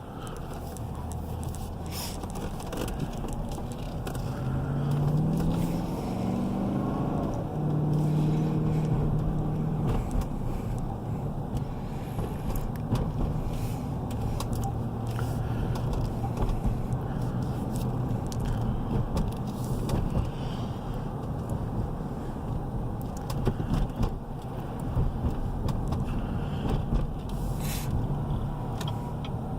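2017 GMC Yukon XL's 5.3-litre V8 pulling away, heard from inside the cabin: the engine note climbs in steps as the automatic shifts up, then settles into steady cruising with road noise and a few sharp clicks.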